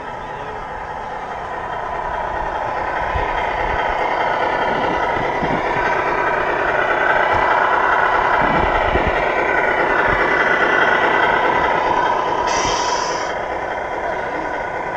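Model RC semi truck's sound module playing a diesel truck engine, swelling as the truck drives along and easing off near the end. A short hiss like an air-brake release comes about two seconds before the end.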